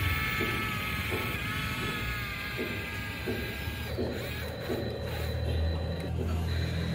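Small electric gear motors of a toy remote-control excavator whining as the arm and bucket move, with gear clicking. The whine holds steady for about four seconds, then gives way to a lower hum near the end.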